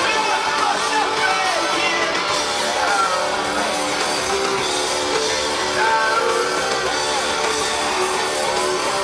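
Live rock band playing through a large outdoor PA, with electric guitar and a singing voice.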